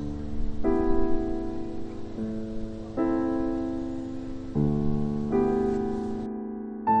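Background solo piano music: slow, sustained chords, with a new chord struck about every second and a half.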